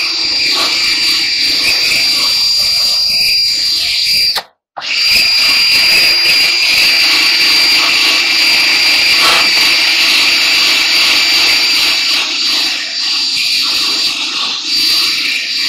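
Cordless drill at full speed driving a wire wheel brush against the dryer's metal rim, scrubbing off old door felt and rubbery glue; a steady high whine that cuts out briefly about four and a half seconds in.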